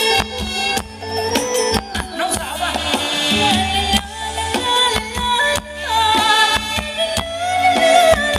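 Live Thai ramwong dance band playing upbeat music with a steady drumbeat, horns and keyboard, and a woman singing.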